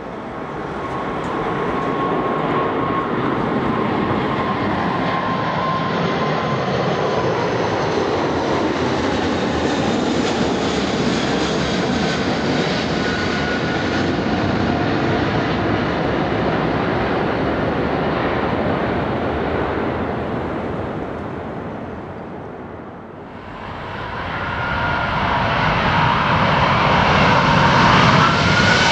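Airbus A380 four-engine jet noise during a takeoff climb-out: a steady loud roar that slowly fades. About three-quarters of the way in it cuts to a second A380 on landing approach, whose jet noise grows steadily louder with a rising whine near the end.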